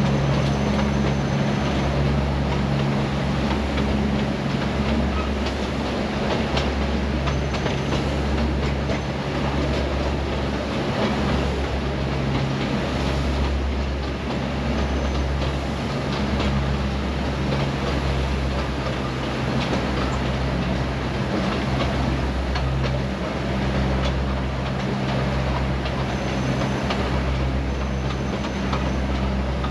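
Narrow-gauge Neral–Matheran toy train running, heard from a carriage window: a steady rumble and rattle of wheels on the rails. Underneath is a low rumble that pulses about once a second.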